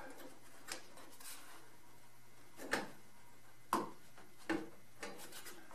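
Plastic light cover being pressed and snapped into the head unit of a Genie Stealth 750 belt-drive garage door opener: about five short, sharp plastic clicks and taps, a second or so apart.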